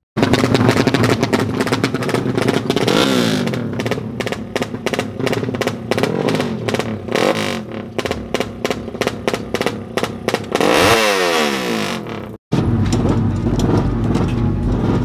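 Yamaha MX King drag bike's single-cylinder four-stroke engine revving hard in quick choppy blips, a helicopter-like sound, with the revs climbing about three seconds in and again near eleven seconds. The sound drops out for a moment about twelve seconds in, then the revving goes on.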